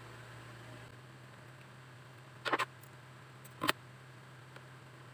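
Two short clicks about a second apart, the first a quick double, from handling the UTP cable and hand tools, over a faint steady low hum.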